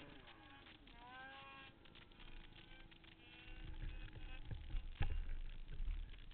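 Turbocharged two-stroke snowmobile engine revving, its pitch swinging up and down and climbing sharply about a second in before holding a steady note. From about halfway a low rumble with buffeting takes over, with a sharp thump about five seconds in.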